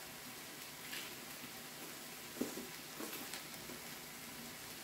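Meat sizzling on a tabletop Korean barbecue grill: a steady hiss with a few short crackles, the loudest about two and a half seconds in.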